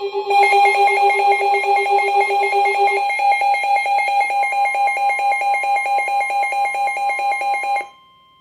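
Electronic emergency alert attention tone, a loud pulsing warble at about five pulses a second. Its lowest tone drops out about three seconds in, and it cuts off sharply near the end, ahead of the spoken warning.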